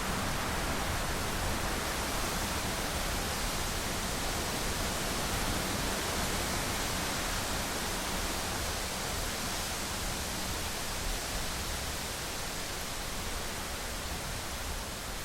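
Steady rainfall from a thunderstorm: an even hiss with no thunder claps.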